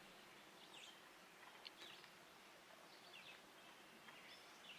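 Faint bird chirps, short calls scattered about once a second, over quiet outdoor background noise.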